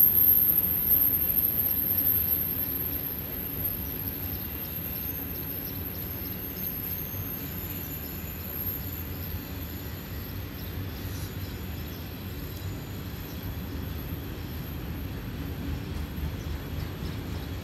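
Freight train's autorack cars rolling past: a steady low rumble of steel wheels on rail that eases a little over the first few seconds and then holds level.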